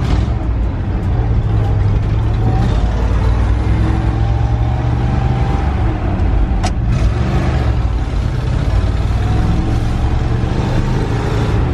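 1961 Ford F250 pickup being driven, its engine running with a steady low drone and rising in pitch twice as it picks up speed, now running well without the bad vapor locking it had. A single sharp click sounds a little past the middle.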